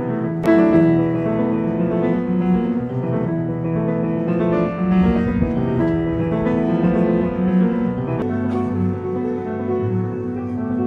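Piano music: sustained chords with notes changing over time, lower bass notes joining about eight seconds in.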